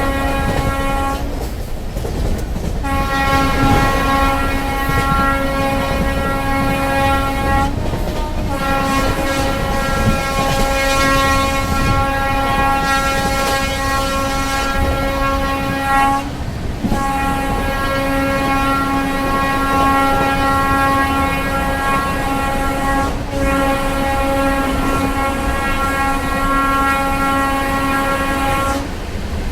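Express train locomotive horn sounded in long continuous blasts of several seconds each, with only brief breaks between them. Underneath is the steady rumble and wheel clatter of the train passing through the station at speed.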